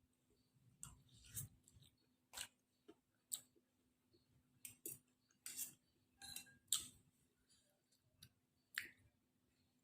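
Faint eating sounds of boiled instant noodles being chewed: about a dozen short, irregular wet clicks and smacks.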